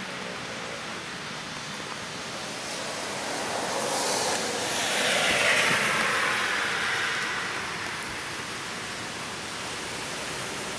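Steady hiss with a vehicle passing on a wet road: tyre spray swells to a peak about halfway through, then fades.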